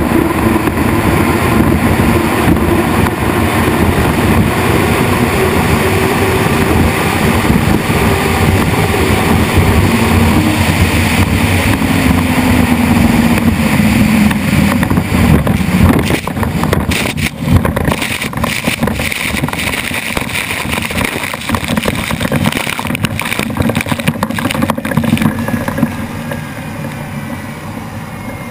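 Turbine-powered unlimited hydroplanes running at race speed, a loud steady engine noise. Partway through, a pitch glides down as a boat passes, and the sound fades away near the end.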